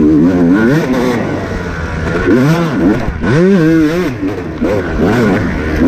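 Off-road racing motorcycle's engine revving up and down over and over as the throttle is worked hard, with brief drops between bursts.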